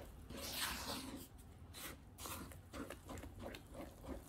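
Silicone spatula stirring flour into wet banana batter in a wooden bowl: soft, irregular scraping and squishing strokes, the loudest about half a second in.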